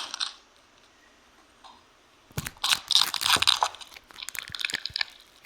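Crunchy clay being squeezed and crushed by hand, a run of crisp crackles that pauses briefly and then resumes about two seconds in.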